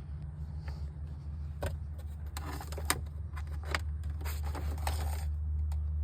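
Aircraft engine wiring and ignition leads being handled by hand: a run of scrapes and rattling clicks, one sharper click about halfway through, over a steady low hum.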